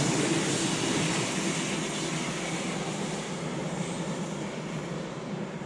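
ICE high-speed electric train rolling away along the line, its wheel-on-rail noise fading steadily as it recedes.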